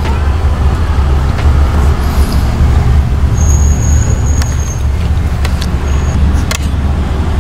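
Low steady rumble of a car idling, heard from inside the cabin, with a few sharp spoon clicks against the plastic serving tray. A thin high whine sounds briefly in the middle.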